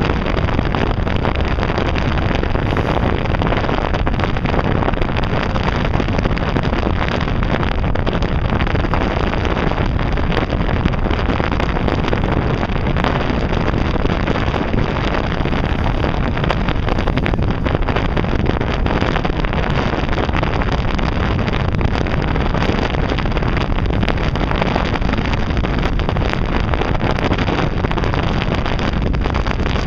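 Steady wind noise on the microphone over the running engine and water of a passenger ferry under way.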